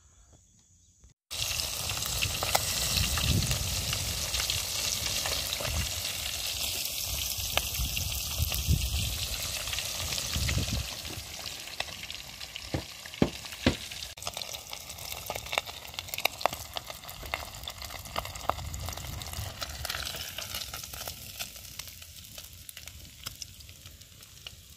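Fish deep-frying in a large pot of hot oil over a wood fire: a steady sizzle with many small pops, starting about a second in and slowly fading toward the end.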